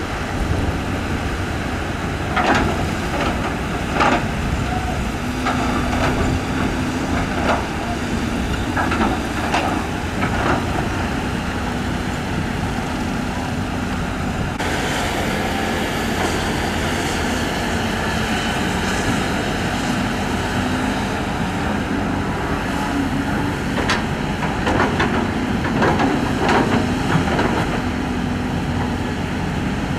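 Heavy tracked excavators' diesel engines running steadily under hydraulic work, with sharp knocks now and then.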